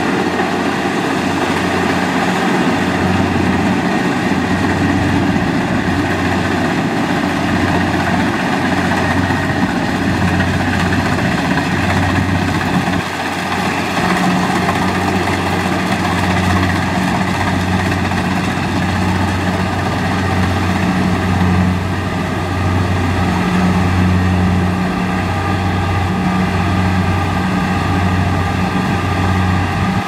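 Kubota DC-70 rice combine harvester's diesel engine running steadily as the machine harvests, a low hum over mechanical noise, with a brief dip in level about 13 seconds in.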